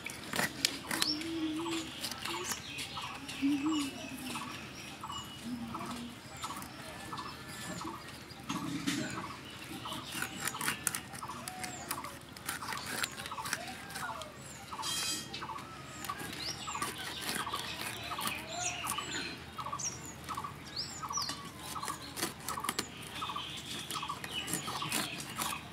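Birds calling: a short note repeated steadily about one and a half times a second, with brief high chirps. Irregular sharp clicks and taps run alongside.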